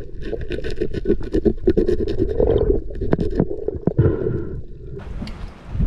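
Underwater handling noise through a camera housing: a quick run of clicks, knocks and scrapes as a speared fish is gripped and worked on a spear shaft. About five seconds in it changes abruptly to wind and hiss above the water.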